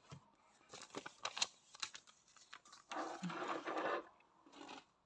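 Hands handling things on a tabletop: scattered small taps and clicks, then about a second of rustling and rubbing around three seconds in, and a shorter rustle near the end.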